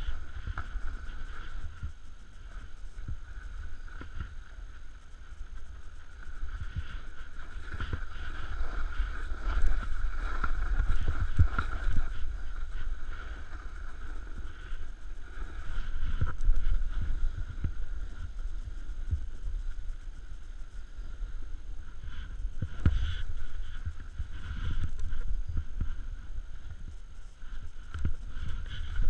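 Snowboard sliding and turning through powder snow, a rushing hiss that swells and fades with the turns, over low wind rumble on the camera microphone. A sharp thump about two-thirds of the way in.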